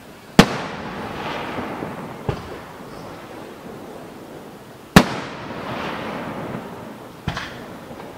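Aerial firework shells bursting: two loud sharp bangs about four and a half seconds apart, each trailing off over a second or so, with two smaller bangs between and after them.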